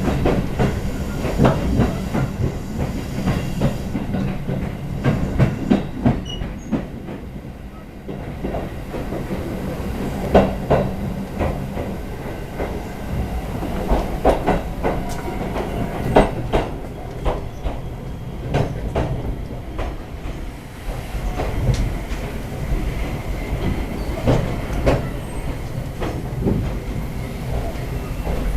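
Inside a Chichibu Railway express train car running along the line: a steady low rumble, with the wheels knocking over rail joints in repeated clusters of clicks.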